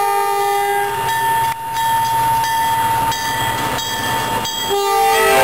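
MBTA commuter train's diesel locomotive passing close by and sounding its multi-note air horn: a short chord right at the start and another beginning near the end, over the steady rumble of the engine and wheels.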